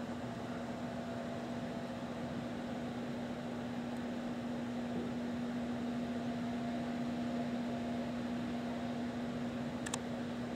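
A steady machine hum with one constant low tone over a faint hiss, and a single short click near the end.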